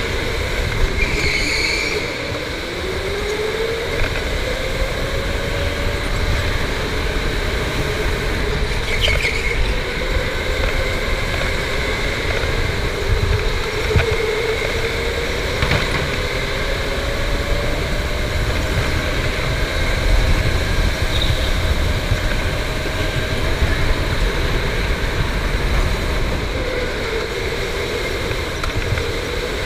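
Electric indoor go-kart on the move, its motor whine rising and falling in pitch with speed through the corners, over a steady low rumble of the kart rolling on the track. A couple of short, high squeals come through, about a second in and again near nine seconds.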